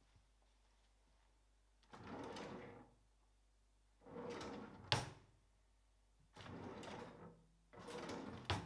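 A kitchen drawer pulled open and pushed shut twice, each slide a rolling rumble of about a second; each closing ends in a sharp knock as the drawer hits home, the first, about five seconds in, being the loudest.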